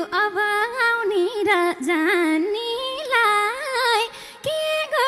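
A woman singing a Nepali dohori folk verse into a microphone. Her ornamented melody bends up and down through each phrase, with a short break about four seconds in.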